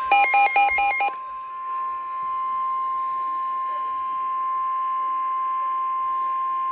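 Weather-radio alert tones: about a second of rapid alternating electronic beeps, then the steady single-pitch 1050 Hz NOAA Weather Radio warning alarm tone. The tone signals an incoming warning broadcast, here a severe thunderstorm warning.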